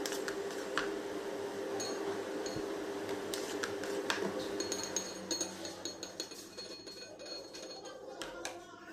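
Metal palette knife scraping whipped cream around a cake on a metal cake turntable, with light metallic clinks and thin high ringing squeaks of metal on metal.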